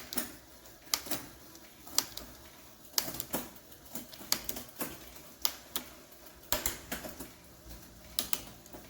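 Bicycle rear derailleur and chain shifting across the cassette as the cranks are turned, giving sharp, irregular clicks about one or two a second, some in quick pairs. This is a test shift after a barrel-adjuster change to cable tension.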